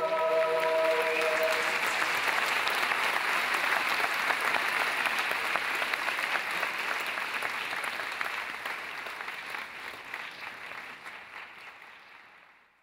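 Theatre audience applauding: dense clapping that holds steady, then fades away over the last few seconds to silence. A few held musical notes die out in the first second or two.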